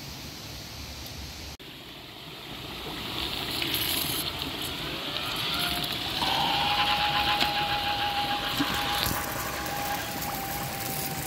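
Battery-powered submersible water pump running at the water's edge: a motor whine that rises in pitch and then holds steady from about six seconds in, over the rush of water.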